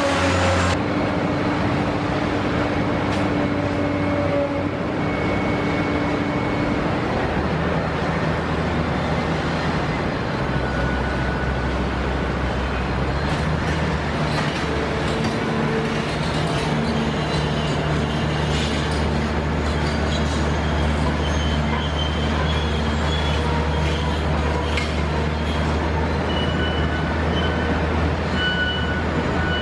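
Caterpillar 385B long-front demolition excavator working, its 15.8-litre Cat 3456 diesel running steadily under load with the hydraulics whining as the high-reach boom and attachment move. The engine note gets heavier about ten seconds in, and a few faint knocks come through later.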